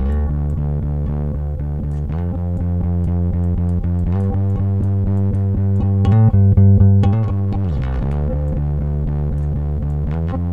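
A bass line of long held notes, played back through Bitwig's 1176-style Compressor while its attack and release are being turned down, the setting meant to add grit and saturation. The notes change every couple of seconds and are loudest about six to seven seconds in.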